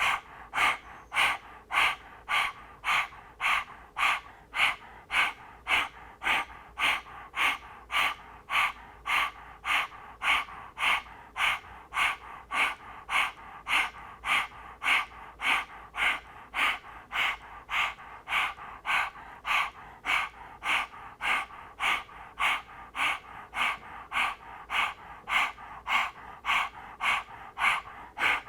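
A woman panting rapidly through an open mouth with her tongue out, doing puppy dog breath, a yogic pranayama breathing exercise. The quick in-and-out breaths come in an even rhythm of about two a second.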